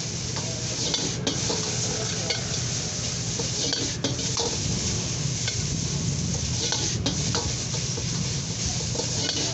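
A metal ladle scraping and clanking in a wok as noodles are stir-fried, with many quick strikes over a steady sizzle and the low steady roar of the gas wok burner. The wok is lifted and tossed about four seconds in.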